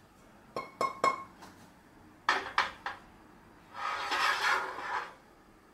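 Stainless steel sauté pan clinking and ringing as it is handled and set down on a portable gas burner: a few sharp metal knocks, more clicks a little past two seconds in, then a hiss lasting over a second.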